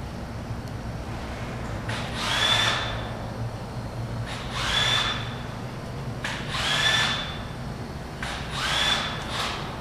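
A power tool runs in four short bursts about two seconds apart, each whining up in pitch and then holding briefly before stopping, over a low steady hum.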